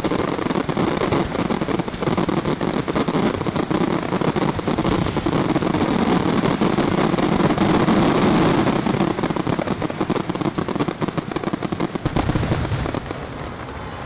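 Aerial fireworks display: a dense, continuous barrage of rapid bangs and crackle from many shells bursting at once, thinning out about a second before the end.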